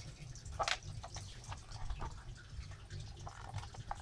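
Light plastic clicks and taps as a dummy figure is pressed and locked into the seat of a Tyco Incredible Crash Test Dummies toy car, scattered and irregular, with one sharper click a little over half a second in.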